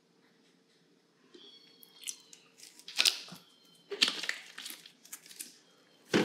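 Bottles and a plastic measuring spoon being handled and set down on a table: a brief high squeak, then several sharp clicks and knocks, the heaviest knock near the end.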